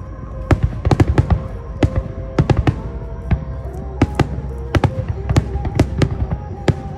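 Fireworks finale: a rapid barrage of aerial shell bursts, several sharp bangs a second, with music of held notes playing underneath.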